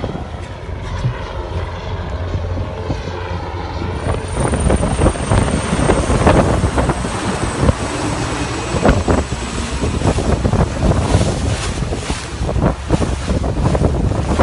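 Wind buffeting the microphone over a steady engine drone, as from a boat on open water. The buffeting gets louder and rougher about four seconds in.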